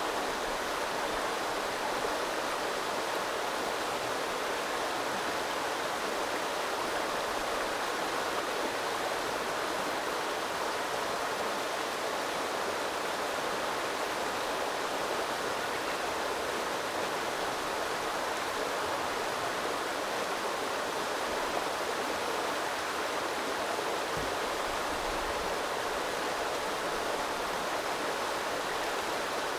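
A small river flowing and babbling in a steady, even rush of water.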